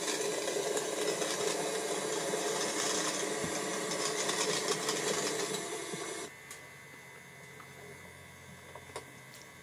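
Model rotary snowplow's electric motor and spinning rotor whirring as it cuts through and throws snow, stopping suddenly about six seconds in and leaving a faint hum.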